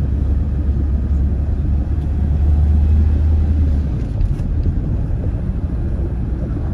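Low road and engine rumble inside a moving car's cabin: a steady drone that eases off slightly about four seconds in.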